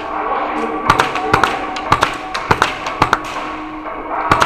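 Airsoft BB guns firing scattered single shots: sharp cracks at irregular intervals, many in quick pairs, with a close pair near the end.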